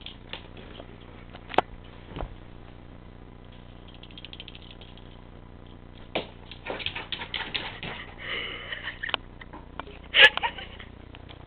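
A cat batting a small ball across a tile floor: scattered clicks and light rattles, growing busier after about six seconds, with one loud knock near the end.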